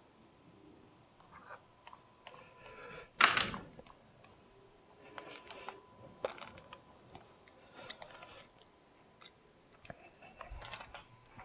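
Small metal hand tools and door-handle hardware clinking and clicking as they are handled, some clinks with a short high ring, and a louder scuffing noise about three seconds in.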